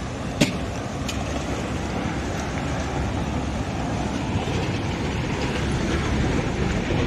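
Steady low rumble of road vehicle noise, with a sharp click about half a second in and a fainter one about a second in.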